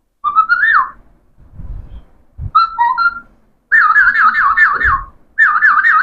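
Alexandrine parakeet whistling: a short rising whistle, a few quick separate notes, then two long warbling trills that swing rapidly up and down in pitch.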